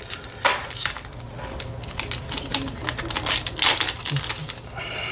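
Foil Pokémon booster pack wrapper crinkling and crackling as it is torn open by hand, a dense run of crisp, irregular crackles.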